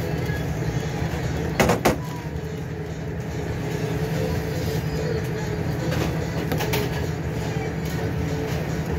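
Steady hum of commercial kitchen ventilation and equipment, with two sharp knocks a moment apart a little under two seconds in, a spoon knocking against the bowl as salsa is scooped onto the fish.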